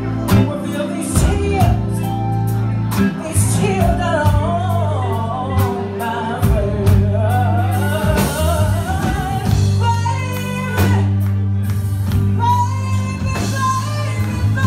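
Live blues band playing: electric guitars, electric bass, keyboards and drums, with a woman singing lead into a microphone.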